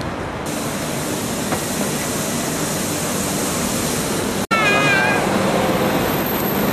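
Steady city street traffic noise, an even hiss. It breaks off abruptly at a cut about four and a half seconds in, then resumes with a brief high, wavering call.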